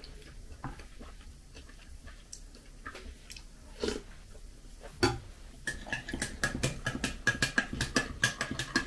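Quiet eating with a spoon from a bowl. From a little past halfway, a teaspoon stirs in a ceramic mug, clinking rapidly against its sides.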